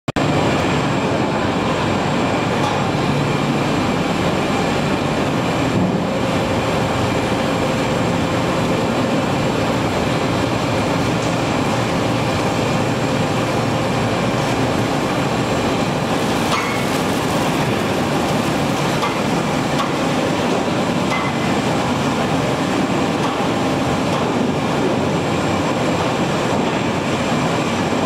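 Steady, even machinery noise of an industrial shrimp cooking line running, with conveyor belts, pumps and cooking equipment all in operation. A faint high whine is held under it.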